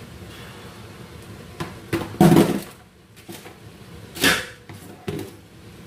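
Several knocks and clatters of kitchen containers being handled and set down, the loudest a dull thud about two seconds in.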